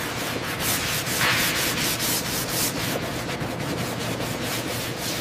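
Sanding: an abrasive rubbed back and forth over a hard surface in quick, even strokes.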